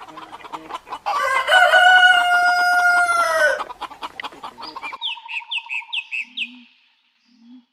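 A rooster crowing once: a long call that rises, holds steady and falls away, after a few short clucks. It is followed by about four quick, high chirps.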